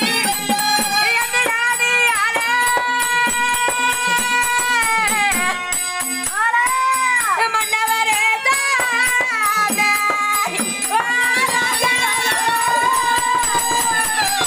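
Instrumental passage of South Indian folk-theatre music: a reedy wind instrument plays a long, bending melody over a harmonium, with a steady metallic beat under it.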